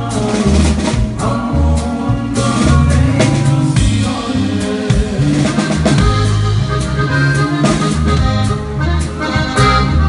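Live band music: a drum kit played with sticks keeps a steady beat under sustained melody notes.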